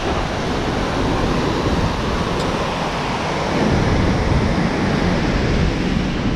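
Mountain river rushing through boulder rapids: a loud, steady rush of whitewater.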